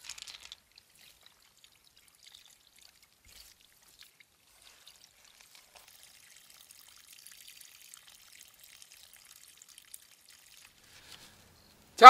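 Faint, steady trickle of water running out of a hose onto gravel and mud.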